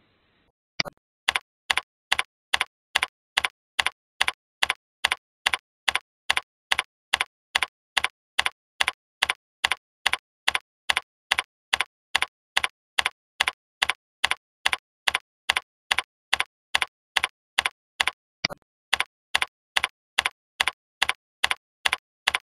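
Typing on a computer keyboard: sharp key clicks at a very even pace of about two and a half a second, with a short break about 18 seconds in.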